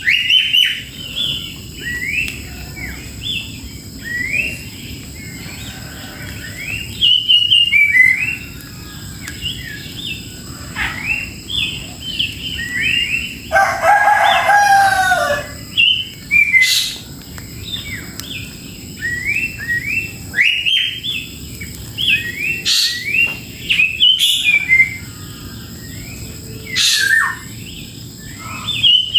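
Birds chirping over and over in short, quick rising notes, with a rooster crowing once about halfway through.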